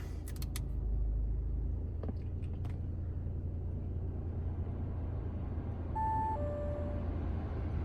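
Audi A6 2.0 TDI four-cylinder diesel idling just after a push-button start, heard from inside the cabin as a steady low hum, with a few light clicks. About six seconds in the car gives a short two-note electronic chime, high then low.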